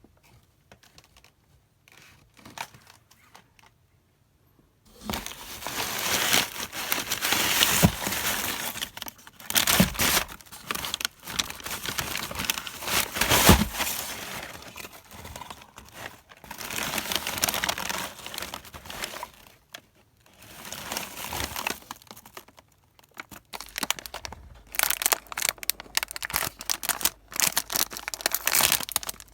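Packaging being handled and unwrapped, crinkling and rustling in irregular bursts, with quicker, sharper crackles near the end.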